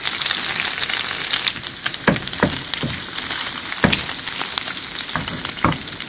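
Pork pieces frying in their own rendered fat in a nonstick pan: a steady sizzle, with a handful of sharp clicks from about two seconds in.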